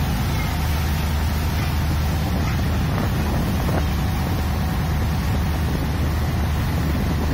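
Thames Clipper river boat under way, its engines running as a steady low drone under an even rushing hiss of water and wind.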